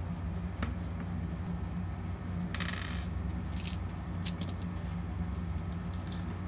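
Small crochet tools set down one by one on a wooden desk: a short scrape about two and a half seconds in, then a few light clicks and taps of small plastic pieces. A steady low hum runs underneath.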